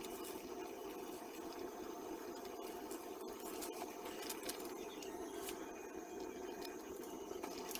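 Milk and cheese sauce simmering in a pan on a low gas flame: a steady hiss with faint scrapes and taps of the wooden spoon stirring it.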